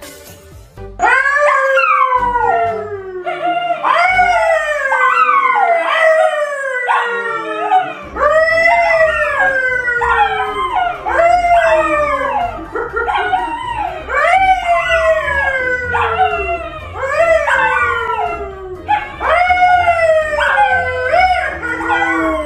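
Two dogs, a pale Labrador-type and a brown poodle-type, howling together with a man who howls along with them. The howls begin about a second in and come one after another, each rising briefly and then sliding down in a long fall, the voices overlapping.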